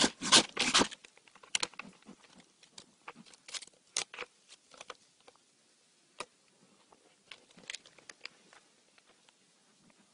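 Close rustling and scraping with scattered sharp clicks and scratches, loudest in the first second: a black bear clambering on a tree trunk and brushing its fur and claws against the phone at the microphone.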